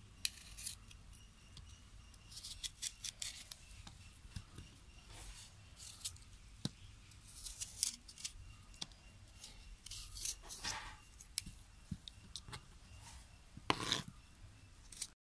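Kitchen knife cutting the cores out of raw apple quarters: short, crisp crunching and scraping cuts that come in clusters, with the odd click of the blade on a plastic cutting board.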